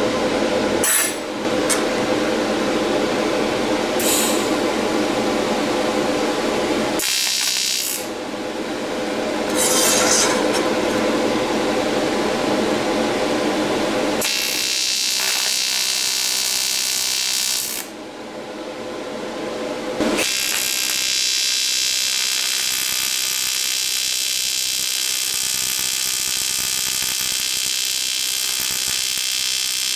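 AC TIG welding arc from a PrimeWeld TIG225X on aluminium plate, a steady buzz that starts about halfway in, stops for about two seconds, then re-strikes and runs on steadily. Before the arc there is a steady hum with a few short hisses.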